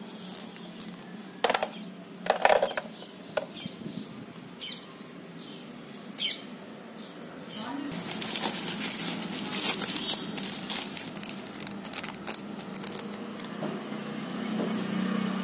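Hands handling plastic packaging and a plastic-cased voltage stabilizer: a few sharp knocks and taps in the first half, then steady crinkling of plastic wrapping from about halfway through, over a low steady hum.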